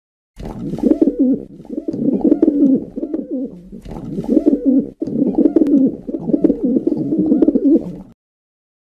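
Feral rock pigeons cooing: a continuous string of low, warbling coos, one after another, with a brief break about five seconds in.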